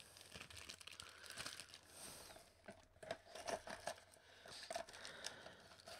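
Faint crinkling and rustling as a cardboard candy box and the wrapped candies in it are handled, with scattered small irregular taps.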